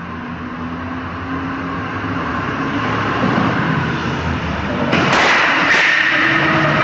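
Heavy truck engine running and growing louder as the truck pushes through closely packed cars. About five seconds in there are two sharp crashes less than a second apart, followed by about a second of harsh noise.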